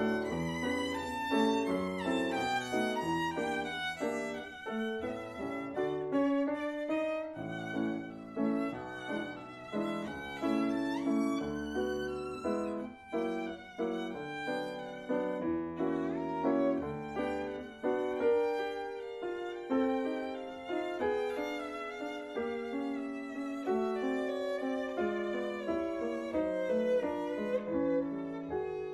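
Instrumental music led by a violin, playing a melody of quickly changing notes with vibrato.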